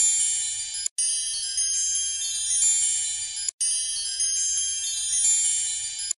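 Added chime music of many high, steady ringing tones, played as a short loop that cuts out for an instant and restarts twice.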